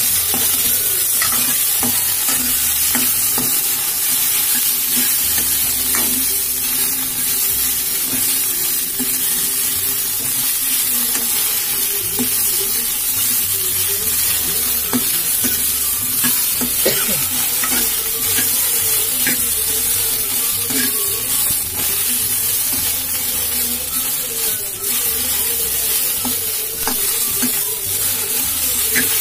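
Cut okra frying in oil in a metal pot, sizzling steadily, while a metal spoon stirs it, scraping and clicking against the pot now and then.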